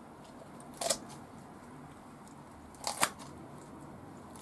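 Poultry shears snipping through a raw chicken's rib bones along the backbone: one crunchy snip about a second in and a quick double snip about three seconds in.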